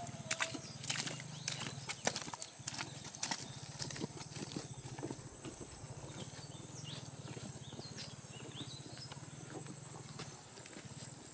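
Footsteps squelching and slapping through wet, sticky mud on a dirt track, with sharp irregular steps in the first few seconds that then grow fainter. A steady low hum and a thin, high, steady whine run underneath.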